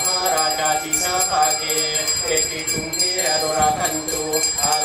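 A man intoning a ceremonial invocation into a microphone, his voice drawn out on long held notes, with a fast, steady jingling of small bells behind it.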